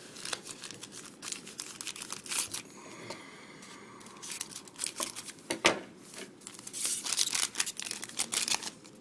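Foil wrapper of a hockey trading card pack being torn open and crinkled in crackly bursts, with a short lull about three seconds in.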